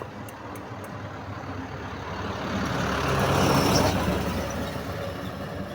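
A motor vehicle passing on the road, its engine and tyre noise growing louder to a peak about three and a half seconds in, then fading away.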